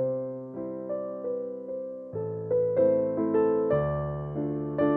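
Background piano music: a slow melody of struck notes over held bass notes.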